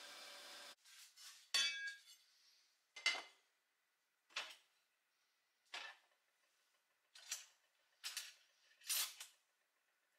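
Small painted pressed-steel toy road-grader parts being set down one by one on a workbench, about seven separate metallic clinks and light knocks spaced a second or so apart. Before them, a steady sandblaster hiss cuts off abruptly just under a second in.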